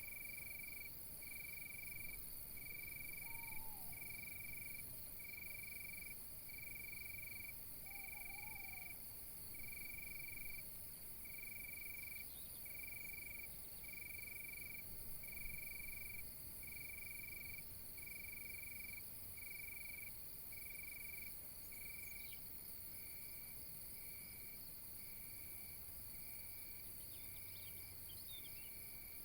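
Crickets chirping in a steady, even rhythm, about three chirps every four seconds, over a continuous high insect trill. A couple of faint, brief calls come about three and eight seconds in.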